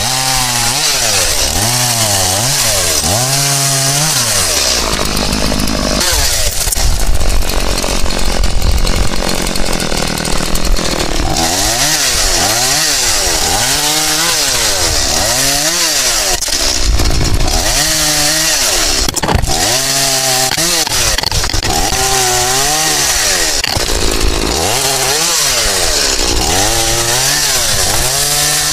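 Stihl MS 180 two-stroke chainsaw revving up and down over and over as it cuts through willow branches. For several seconds from about six seconds in, and again briefly later, it holds steady at full throttle while the chain is in the wood.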